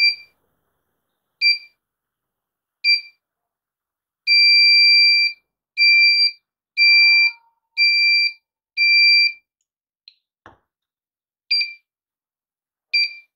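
Electronic LED hourglass kit's buzzer beeping at one high pitch. It gives three short beeps about a second and a half apart, one beep about a second long, then four half-second beeps about a second apart. A light knock comes about ten seconds in, followed by two more short beeps.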